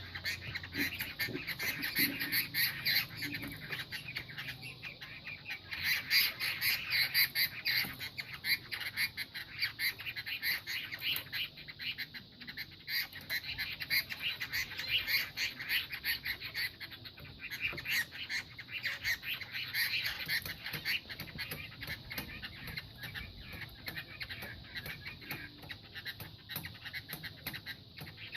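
Fighting songbirds calling with rapid, dense chatter, along with scuffling and wing flapping during the fight.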